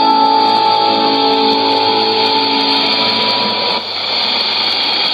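Music from a shortwave broadcast received in AM on a Sony ICF-2001D: held notes over steady static hiss, the sound narrow and dull with no treble. The music ends about three and a half seconds in, leaving only the hiss and band noise of the signal.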